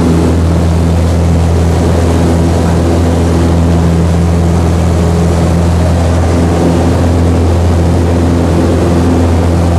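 Citabria's engine and propeller running at steady power, a loud, even drone with a deep hum, heard from inside the cockpit.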